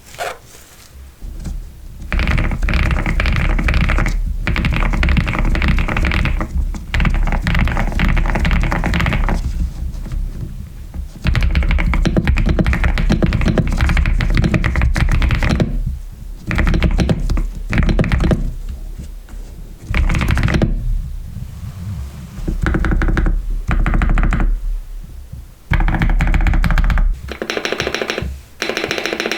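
Typing on an Epomaker TH99 mechanical keyboard: rapid runs of key strokes lasting several seconds, broken by short pauses.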